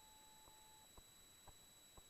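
Near silence, with faint ticks about twice a second and a faint steady tone that cuts off a little under a second in.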